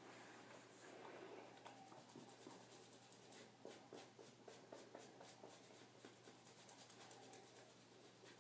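Faint, quick scratchy rubbing of a nail buffer on a dog's toenails.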